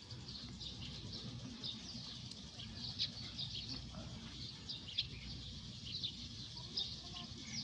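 Small birds chirping: many short, high chirps in quick succession, over a steady low rumble.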